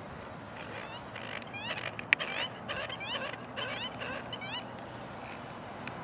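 Canada geese honking: a rapid run of rising calls from about half a second in until about four and a half seconds, with one sharp click about two seconds in.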